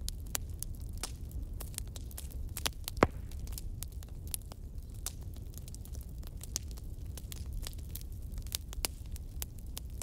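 Wood fire in a fireplace crackling: a steady low rumble of the flames with a constant scatter of small sharp crackles, and one louder pop about three seconds in.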